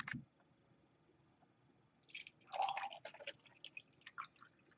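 Water poured from a glass jug into the small reservoir of a handheld clothes steamer: a brief knock at the start, a splash about two seconds in, then a faint trickle of irregular drips and plinks as the reservoir fills.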